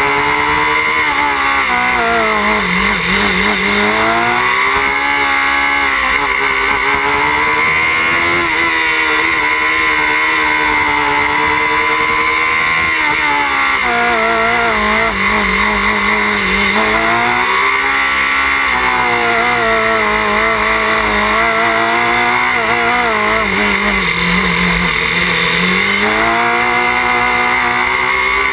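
Open-wheel single-seat race car engine heard on board while it laps a cone course, the revs repeatedly dropping and climbing again through the corners and straights.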